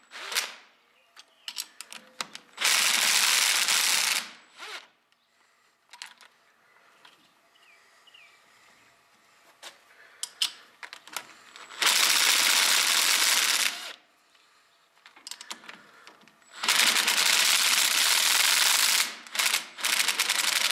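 Cordless impact driver hammering on the clutch's pressure-plate bolts in three bursts of about two seconds each, backing them off to take spring tension off the plates. Light metallic clicks and taps come between the bursts.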